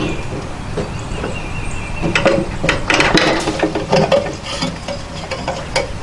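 Metal clinks and knocks of a loaded rotisserie spit being handled and set into its brackets on a gas grill. The clatter is scattered and irregular, busiest from about two to four seconds in.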